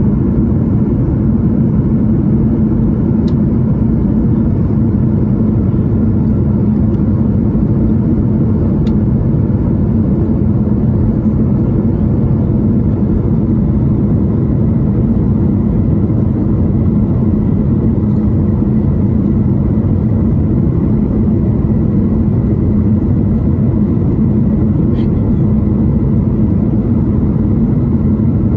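Steady low cabin roar inside a Boeing 737 MAX 8 in flight, from airflow and its engines, with a faint steady high tone above it.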